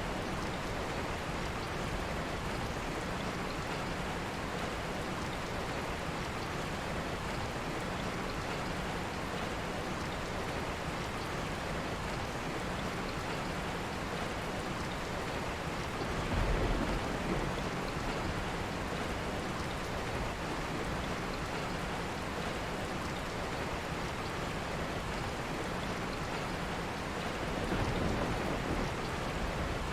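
Steady rain falling as an even, unbroken hiss, with a brief low rumble about halfway through and another near the end.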